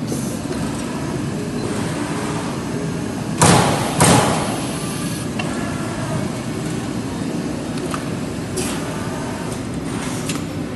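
Trumpf Trumatic 160R CNC turret punch press running with a steady machine noise while punching sheet metal: two loud punch hits about half a second apart a few seconds in, then a few lighter knocks near the end.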